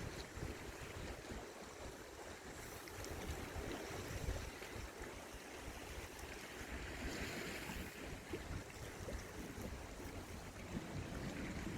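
Sea water washing and lapping, with wind buffeting the microphone in an uneven low rumble.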